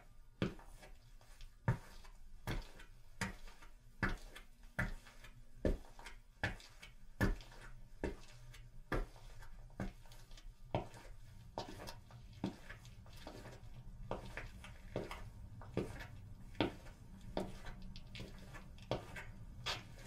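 Footsteps walking at a steady pace, a step a little under every second. About halfway through, a low background rumble comes in under the steps.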